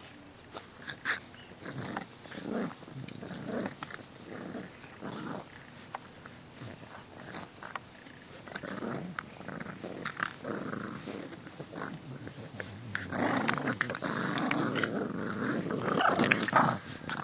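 English bulldog puppies making dog noises: scattered short sounds at first, becoming louder and more continuous in the last few seconds.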